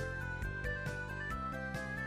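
Background music: a light melody in short stepping notes over a steady beat of about four ticks a second.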